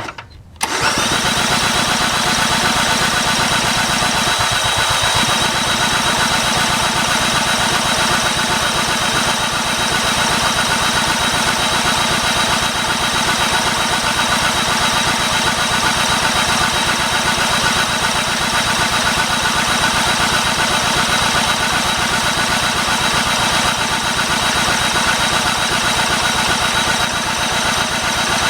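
Small gasoline engine of a portable air compressor catching under a second in, then running at a steady, even speed.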